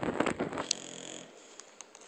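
English bulldog snoring: a rattling snore that breaks off about half a second in, followed by a fainter breath.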